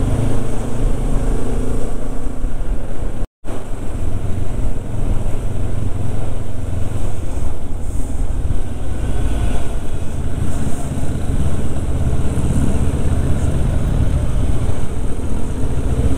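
VMS motorcycle engine running at low town speed, mixed with wind rumbling on the microphone. The sound cuts out for an instant about three seconds in.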